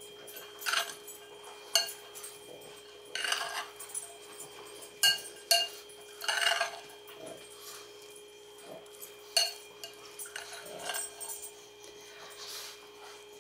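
Metal spoon clinking and scraping against a glass bowl while stirring peas with bacon and grated cheese, in irregular clinks about every second or two.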